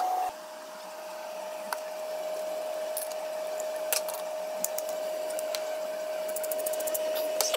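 A steady, even whine over a faint hiss, with a few scattered clicks. Near the end comes a quick run of small clicks as a hand-twisted spice grinder is turned.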